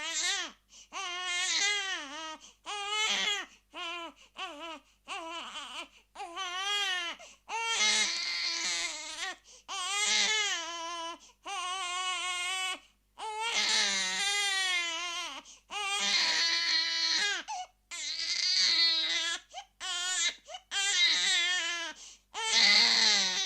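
Baby crying and screaming, a string of wailing cries with a wavering pitch and short breaths between them, some cries longer and harsher near the middle and end.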